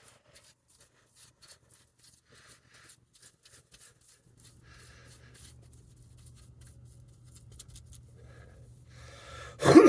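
Faint, quick scratchy strokes of an applicator spreading acid etching cream over a PC case panel, with a low steady hum coming in about four seconds in. Near the end a short, loud voice sound falling in pitch, like a sigh.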